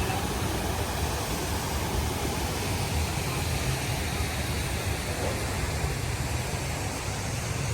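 Steady rushing noise with a fluctuating low rumble: wind buffeting the microphone.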